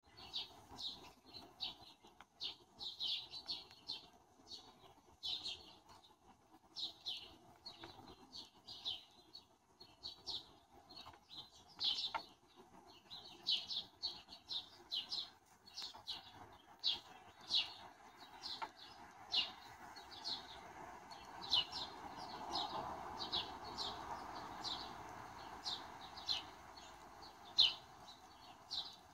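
A flock of house sparrows chirping over and over, short sharp cheeps a few each second. Under them a low steady rushing noise grows louder in the second half.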